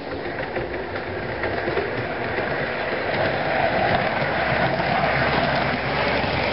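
Hornby OO-scale Class 466 Networker model electric train running on the track, a steady rattling whir that grows louder as it approaches and passes close by near the end.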